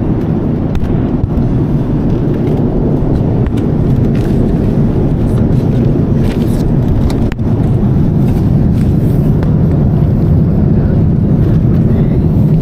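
Steady low rumble of a Boeing 787 Dreamliner's cabin in cruise flight: engine and airflow noise, even and unbroken.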